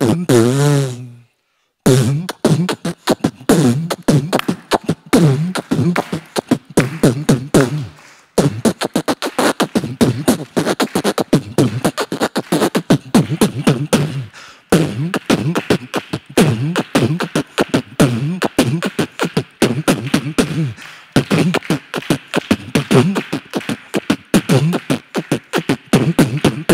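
Human beatboxing into a handheld microphone: a fast Chennai dappankuthu beat of rapid vocal drum hits over pitched, hummed bass lines. The beat starts about two seconds in, after a couple of held vocal notes, and is broken into phrases by brief pauses.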